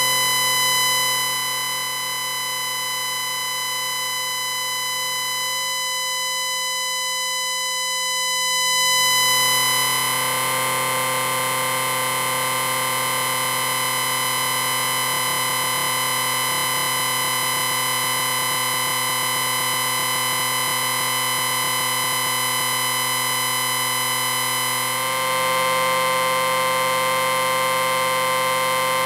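Sci-fi electric space-station background hum: a steady, dense electronic drone of many held tones, low to high. It swells briefly about nine seconds in and steps up a little louder near the end.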